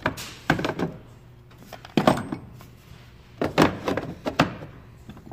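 Hard plastic clicks and clunks of a DeWalt 20V lithium-ion battery pack being handled and slid off a DeWalt charger: a few separate knocks, then a quicker cluster of them about three and a half seconds in.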